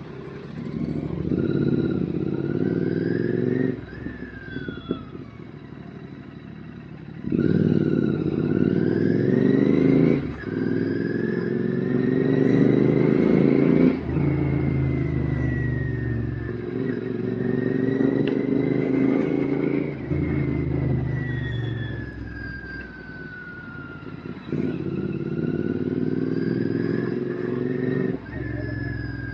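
Royal Enfield GT650's 648 cc parallel-twin engine through an RRP aftermarket exhaust, heard from the moving bike: several pulls through the gears, each rising in pitch and loud under throttle, with quieter dips between as the throttle closes.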